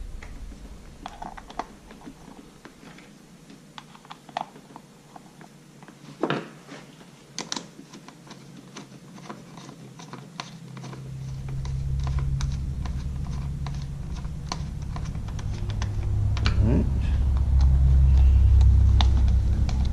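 Scattered small clicks and taps of a hand screwdriver and plastic blower handle parts as screws are driven back in by hand. About halfway through, a low rumble starts, grows louder and becomes the loudest sound.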